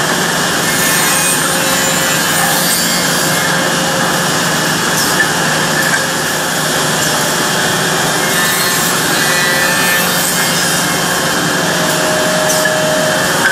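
Woodmaster double-ended CNC tenoning machine running: motors hum while the cutters mill tenons and spinning abrasive brush wheels sand short wooden pieces, giving a steady, loud rasping noise.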